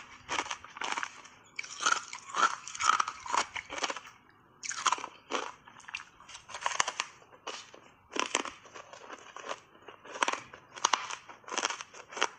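Hard ice chips coated in matcha powder being bitten and chewed: a steady run of sharp crunches, about two a second, with a denser flurry of crunching a couple of seconds in.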